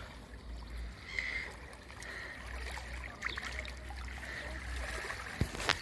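Shallow seawater lapping and trickling over sand at the water's edge, under a steady low rumble, with a few sharp clicks near the end.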